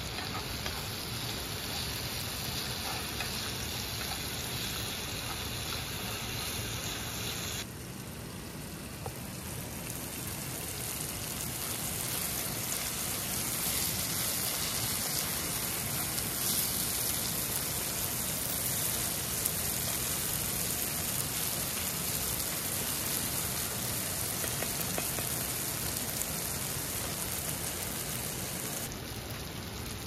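Rushing water of a mountain stream and river, a steady hiss. About eight seconds in the sound changes and grows a little louder, easing back near the end.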